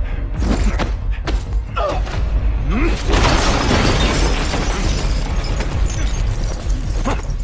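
Two men scuffling: several thuds and blows with grunts, then about three seconds in a loud crash with shattering that trails off over a couple of seconds.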